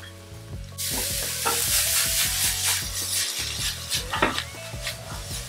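Chopped bell peppers and king oyster mushroom hitting hot oil and sizzling, the hiss starting suddenly about a second in, while a spatula scrapes and stirs them through the fried onion in the pan.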